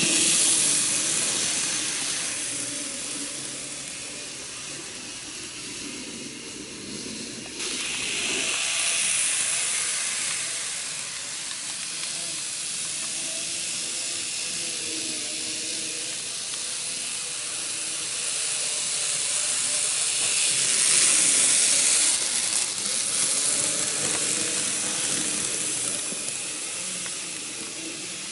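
N gauge model train running on KATO Unitrack: a steady hissing rattle of its small wheels and motor on the track, swelling as the train passes close at the start and growing louder again twice later on.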